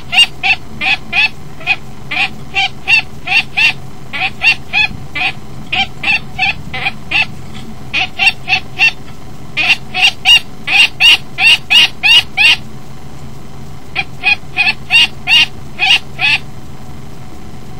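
Female common kestrel giving a rapid series of alarm calls, about three or four a second, in runs broken by short pauses, with a longer pause a little past halfway: agitation at a jackdaw on the nest box's grating.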